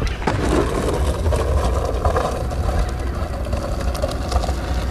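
Skateboard on soft Bones ATF Rough Riders 59mm wheels rolling over coarse asphalt: a steady low rumble with scattered small clicks.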